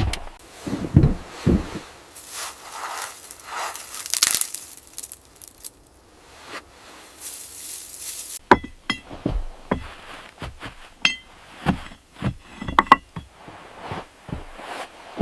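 A few thumps, then a stretch of hiss. After that comes a quick run of knocks and clinks, some with short high ringing pings, like glass or metal being handled.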